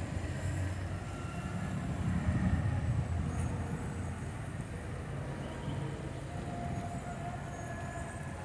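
Outdoor street ambience: a steady low rumble of distant traffic, with a few faint higher sounds now and then.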